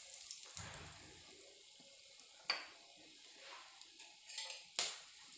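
Cumin seeds and whole spices with a pinch of asafoetida sizzling faintly in hot oil in a steel kadhai, tempering the spices. A few sharp clicks or knocks sound over the sizzle, the loudest a little under five seconds in.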